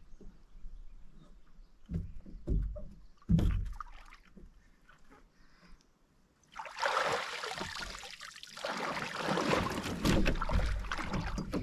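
Several hollow knocks against a canoe hull, then, after a short break, a long rushing, splashing noise.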